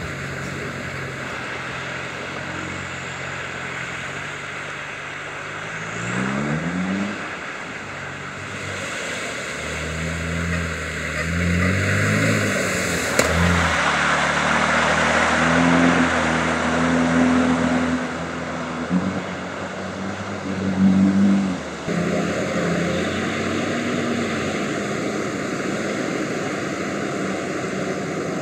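Off-road 4x4 engines revving and labouring as the vehicles push through a muddy, flooded track, with water and mud splashing around the wheels. The engine note climbs and drops several times and is loudest in the middle.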